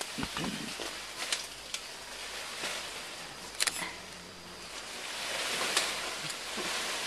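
Leaves and stems rustling as young mountain gorillas move and play in dense undergrowth, with a few sharp snaps, the loudest about three and a half seconds in. The rustling swells near the end.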